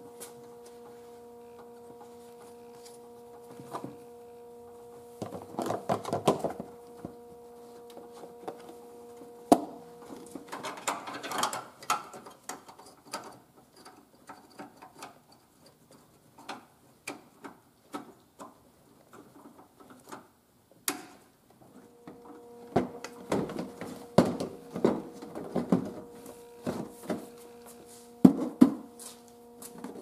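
Hard plastic clicks, knocks and rattles in irregular clusters as a Volvo XC90 headlight assembly and its round bulb cover are handled and pushed back into place. A steady hum sounds underneath through about the first ten seconds and again from about eight seconds before the end.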